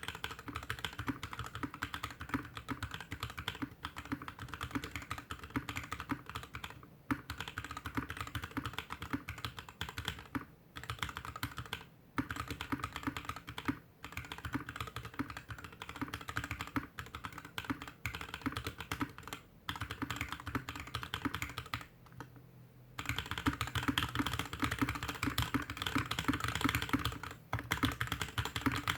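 Typing on a GK61X mechanical keyboard with stock Tecsee Blue Velvet linear switches, a stainless steel plate, a plastic case and DSA keycaps, set on a desk mat. Steady keystrokes give way to a brief pause about three-quarters of the way through, after which the typing turns faster and louder.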